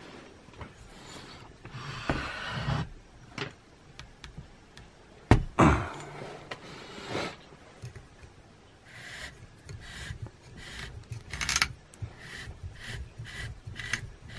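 Irregular scraping and rubbing from the homemade glass lathe's wooden carriage and handwheel being handled on its aluminium rails. A sharp knock comes about five seconds in, and shorter rubs follow later.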